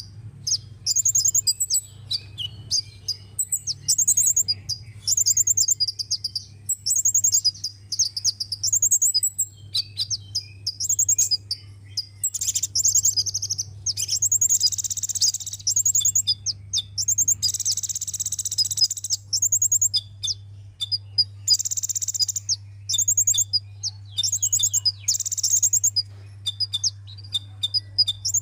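Sunbird song: rapid runs of very high, thin chirps and twittering notes, with longer buzzy trills of a second or so in the second half.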